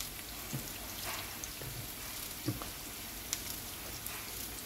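Ring-sliced onions frying in olive oil in a pot, a steady sizzle with fine crackling, with a few faint clicks over it.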